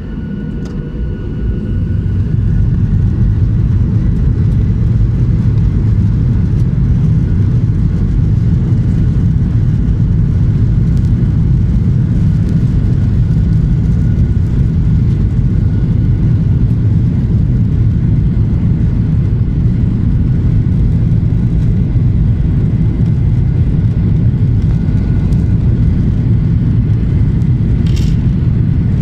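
Aircraft engines run up to takeoff power: a loud low rumble that builds over the first few seconds and then holds steady, with a faint high whine above it.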